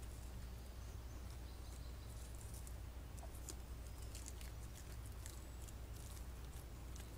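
Irregular light crackling and rustling, a patter of short clicks coming every few tenths of a second, over a steady low hum.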